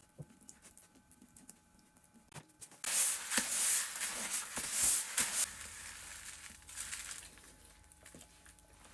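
Crinkling, rustling handling noise that starts suddenly about three seconds in, is loudest for the next few seconds, then tapers off, with a few soft clicks before it.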